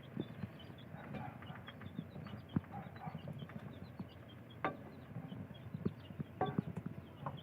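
Chickens clucking, with many short, high chirps from small birds or chicks and a few sharp knocks, the clearest about two-thirds of the way through.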